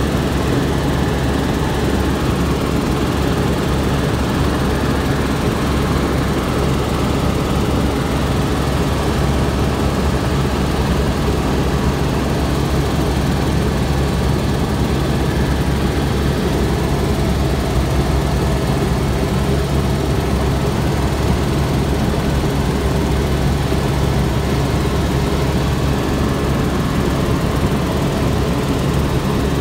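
Steady engine and propeller drone of a light aircraft in cruise, heard from inside the cabin: an even, unchanging hum with a low steady tone.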